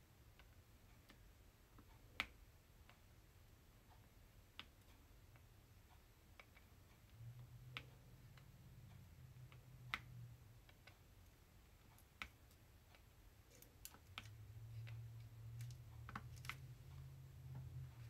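Soft, sparse clicks of round resin drills being picked up with a drill pen and pressed onto a diamond painting canvas, one every couple of seconds. A faint low hum comes and goes twice.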